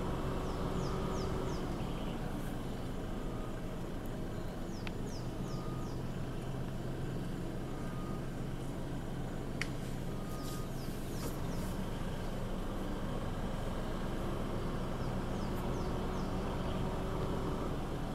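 Car engine idling steadily, a low even hum. Short runs of three or four quick, high, falling bird chirps come three times, with a faint click or two.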